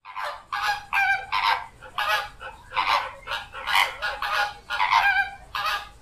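Flamingos calling: a quick run of short, honk-like calls, roughly three a second, that stops shortly before the end.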